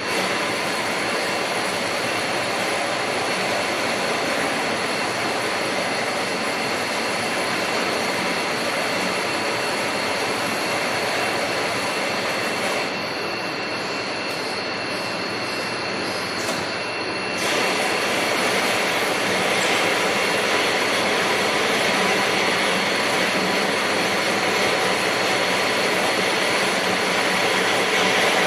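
Steady mechanical din of CNC machine tools running, a dense noise with thin high-pitched whines held through it. The sound shifts abruptly about 13 seconds in and again near 18 seconds, becoming a little quieter and then louder.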